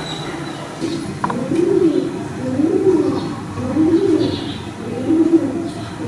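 A dove cooing: a low coo that rises and falls, repeated about once a second, five times.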